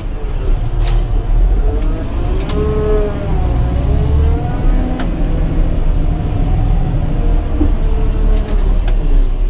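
Caterpillar 120K motor grader's diesel engine running steadily under load, heard from inside the cab. Between about two and four seconds in a whine rises and falls in pitch, and a sharp click comes about five seconds in.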